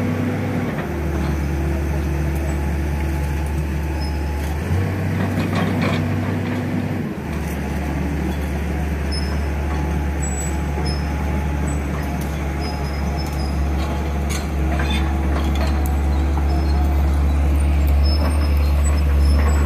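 Excavator diesel engine running steadily while its hydraulics hold a heavy cast concrete panel on the lifting chain. The engine note shifts pitch a few times in the first seven seconds.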